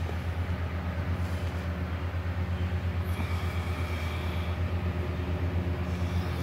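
Steady low mechanical drone with a fast, even pulse, like a motor running without a break.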